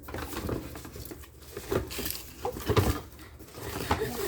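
Rustling and handling of an opened gift package, with irregular soft knocks as its contents are moved, the strongest a little under two seconds in and near three seconds in.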